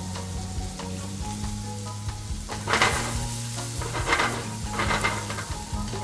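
Red chili, garlic and curry leaves sizzling in melted butter in a small frying pan while being stirred with wooden chopsticks; the sizzle surges louder three times in the second half.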